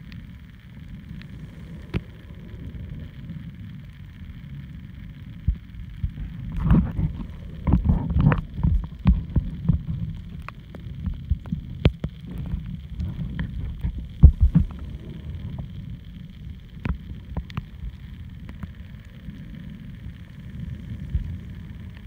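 Muffled underwater audio from a camera held below the surface while snorkeling: a low steady rumble of water moving against the camera, with irregular clicks and thumps. These are busiest from about six to fifteen seconds in.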